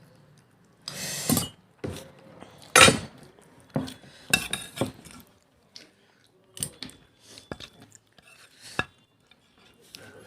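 Plates and eating utensils clinking and scraping in irregular short bursts, the loudest clatter about three seconds in.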